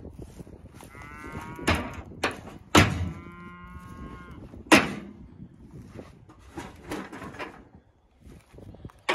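Cattle mooing twice, each call about a second long, with a few sharp knocks in between.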